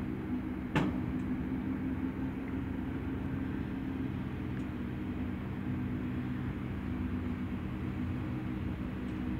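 Steady low mechanical hum made of several held tones, with one sharp click about a second in.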